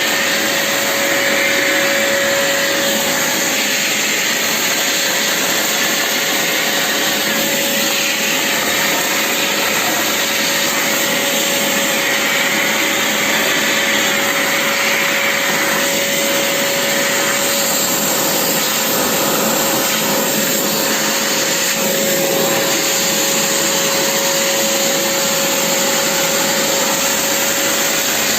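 Vacuum cleaner running steadily: a loud, even rushing of suction with a constant motor whine.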